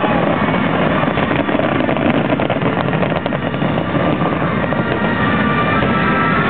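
Fireworks display going off continuously: a constant deep rumble of bursts with dense rapid crackling, thickest about one and a half to three seconds in.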